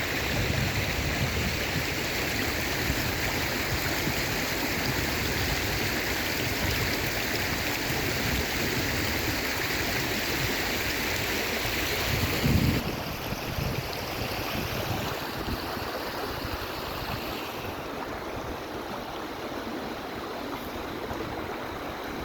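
Steady rushing of water, a noisy wash. A brief low thump comes just before the middle, and the hiss then drops in brightness, stepping down again later.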